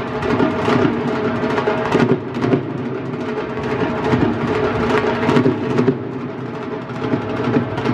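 Dhol drums played with sticks in a busy, continuous drumming rhythm: sharp strikes over a ringing bass.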